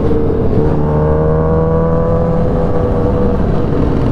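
Motorcycle engine pulling steadily under throttle, its pitch rising slowly over about three seconds, over constant wind and road rush at freeway speed.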